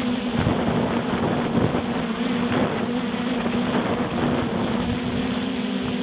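Multirotor drone's motors and propellers buzzing steadily, with wind buffeting the microphone in gusts.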